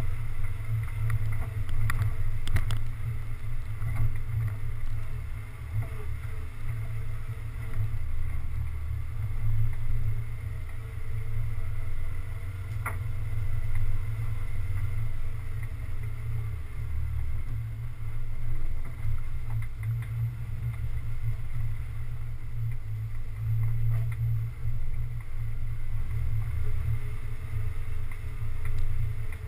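Low, muffled rumble of an off-road vehicle's engine as it drives slowly along a bumpy dirt forest trail, picked up by a camera on the hood, with wind buffeting the microphone. A few sharp knocks come through as it goes over bumps, near the start and about halfway through.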